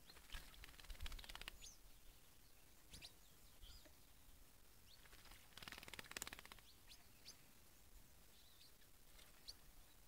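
A small dark bird bathing in a shallow tray of water, beating its wings in the water in two bouts of rapid splashing, about a second long each: one just after the start and one around the middle. Faint short bird chirps come in between.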